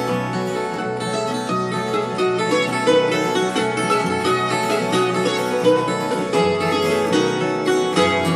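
Portuguese guitar (guitarra portuguesa) playing music, a fast, continuous run of plucked notes.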